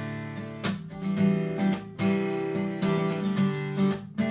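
Acoustic guitar strumming chords in a steady rhythm, with no singing, in the break between lines of a country song.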